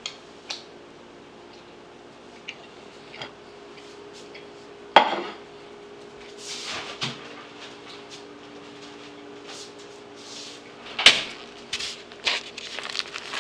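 Kitchen dishes being handled on a countertop: scattered clicks and knocks with a sharp clatter about five seconds in and another around eleven seconds, then a run of small knocks as a styrofoam meat tray is set down on the counter. A steady low hum sits underneath.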